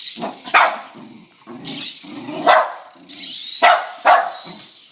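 Dog barking: four sharp barks spaced unevenly, with softer low sounds between them. A thin high whine comes in about three seconds in.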